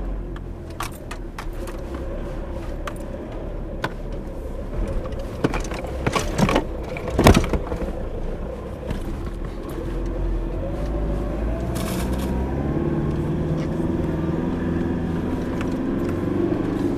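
Four-wheel-drive vehicle heard from inside the cabin, its engine running steadily while it crawls over a corrugated dirt track. Gear in the back rattles and clicks, with a few sharp knocks a little past the middle. In the second half the engine note climbs slowly.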